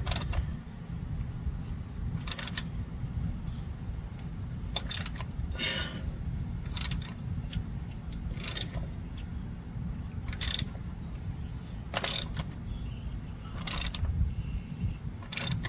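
3/8-inch ratchet turning the filter housing wrench to back out the loosened plastic oil filter housing. A short burst of ratchet clicks comes on each return swing, about every one and a half to two seconds, over a steady low rumble.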